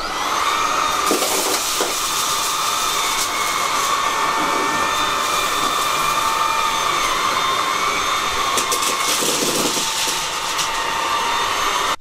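Xiaomi Mi Handheld Vacuum Cleaner 1C cordless stick vacuum running with a steady high whine, starting abruptly and cutting off near the end. A few stretches of rattling and crackling come from its brush head picking up cat litter, sugar and dry cat food from the floor, flinging part of the litter aside.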